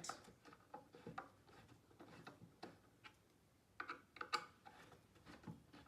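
Light, scattered clicks and taps of engineered-wood drawer panels being fitted together by hand, with a small burst of knocks about four seconds in.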